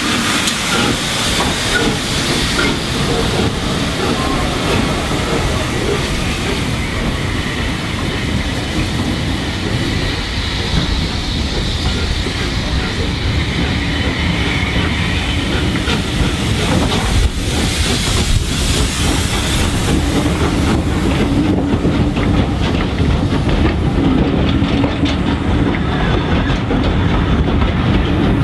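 Southern Railway Schools class 4-4-0 steam locomotive pulling away close by with steam hissing, followed by its coaches rolling past, wheels clicking over the rail joints. The high hiss fades in the last few seconds as the coaches pass.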